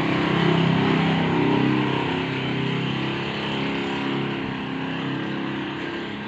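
An engine running with a steady low hum, a little louder in the first couple of seconds.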